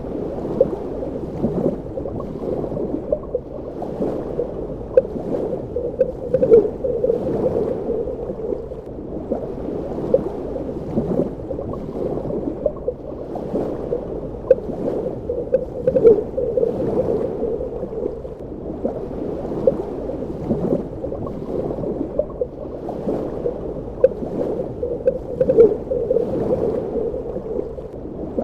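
Underwater ambience: a muffled, steady wash of water with irregular bubbling and gurgling pops throughout.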